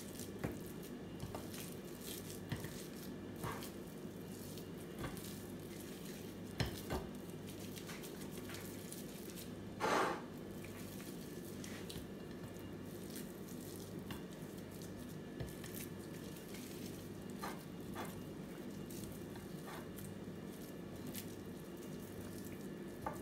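Hands squeezing and rolling spiced minced meat into balls on a plate: soft squishing with scattered light taps, over a steady low hum. A brief louder scrape about ten seconds in.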